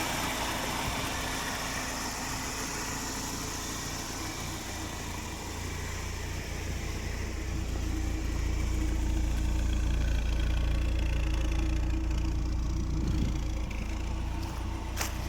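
BMW E36 318is M42 four-cylinder engine idling steadily and quietly, with no lifter tick; the tick had come from a leftover piece of old oil pan gasket letting air in. The engine gets louder in the middle stretch, then drops back.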